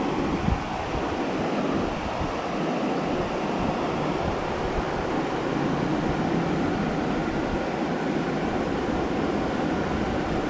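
Steady rushing noise of hurricane wind and moving water, with one brief knock about half a second in.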